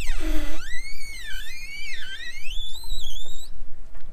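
Inflatable boat's rubber tube squealing against its trailer as it is pushed off into the water: a high squeal that slides up and down in pitch several times and stops about three and a half seconds in.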